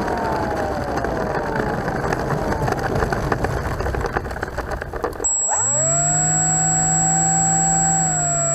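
Electric motor and propeller of an RC T-28 scale model plane in flight, heard through rushing wind noise, its pitch sliding downward. About five seconds in, the sound switches abruptly to a steady whine with a thin high tone above it.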